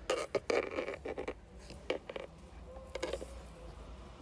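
Hand-work noise at a steering wheel: a quick run of scrapes and clicks in the first second or so, then a few single clicks, as a screwdriver is handled and put to the airbag's release hole.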